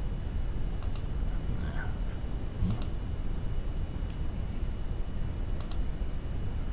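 Computer mouse clicking three times, each a quick press-and-release pair, over a steady low hum of room noise.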